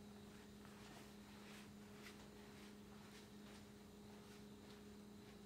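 Near silence: a faint steady low hum with faint ticks, about two or three a second.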